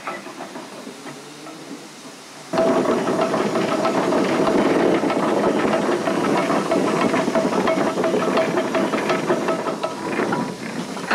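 Steam crane hissing steam: a loud, steady hiss with a faint steady tone in it starts suddenly about two and a half seconds in, after quieter background.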